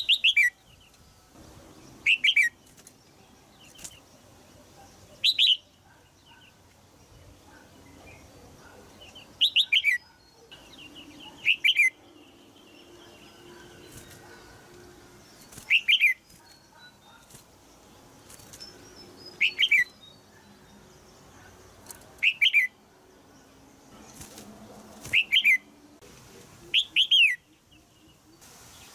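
Red-whiskered bulbul giving short, sharp, downward-sliding call notes in quick pairs and triplets, repeated every two to four seconds: a caged female's chattering calls, used to set young males singing.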